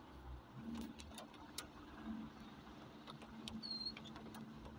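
Vehicle cabin while driving slowly: a steady low engine hum with scattered light ticks of rain on the body, and one short high squeak a little after three and a half seconds.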